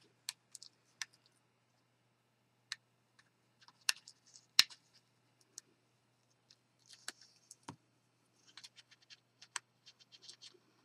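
Backing being picked and peeled off a double-sided sticky strip on cardstock: scattered small clicks and paper scratches, with a sharper tick just before the halfway point and a denser run of scratching toward the end.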